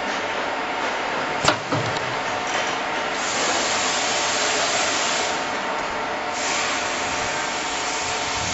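Nozzle-type external vacuum sealing machine running with a steady hiss of pump and air, which grows brighter twice. A sharp metallic clack comes about a second and a half in, with a smaller one just after, as the sealing bar releases the foil bag.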